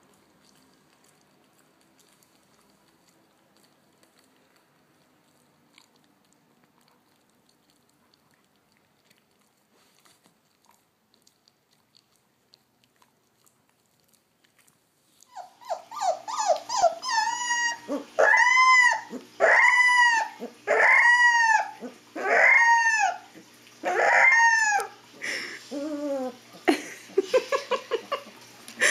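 Siberian husky faintly gnawing a Greenie dental chew, then, from about halfway, a loud series of howling calls, each rising and falling in pitch, about one a second. The last few calls are shorter and lower.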